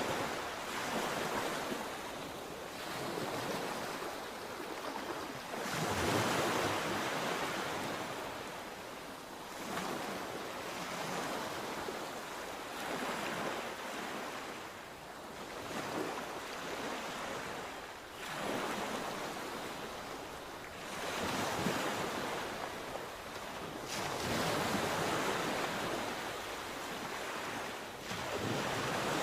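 Sea waves breaking and washing on the shore, a steady hiss of surf that swells with each wave every few seconds.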